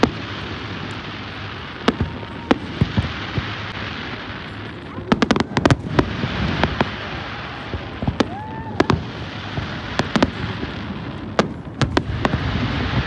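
Fireworks display: sharp bangs of bursting shells at irregular intervals, with a quick cluster of them about five to six seconds in, over a continuous rumble.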